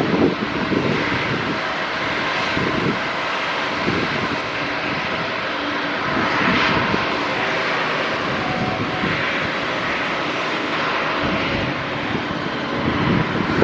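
Jet airliner engines running at low taxi power: a steady whine and rush that holds at about the same level throughout.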